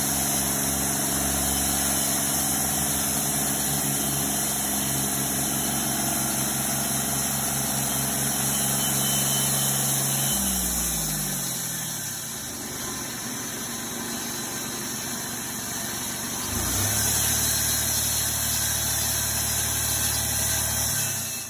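Engine of a 50-inch wide live-edge portable bandsaw mill running steadily. About halfway through it drops in pitch and quietens as it slows. Near the end it picks back up to a steady speed.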